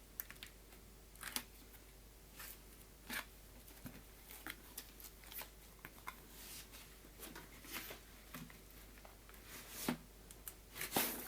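Packaging being handled and opened: faint, irregular rustles, scrapes and light clicks of cardboard and plastic, with a louder rustle near the end.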